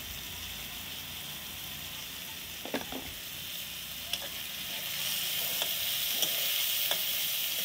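Chopped vegetables sizzling in a wok, stirred with a metal spatula that clicks and scrapes against the pan a few times. The sizzle grows louder about five seconds in.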